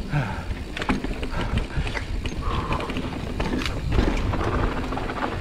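Giant Reign 29 mountain bike riding downhill over rough, rocky singletrack: a steady rumble of tyres on dirt, broken by frequent irregular clicks and knocks from the bike rattling over rocks.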